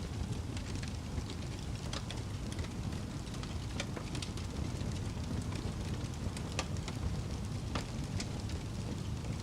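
Fire crackling: a steady low rumble with sharp pops and crackles scattered irregularly, a few each second.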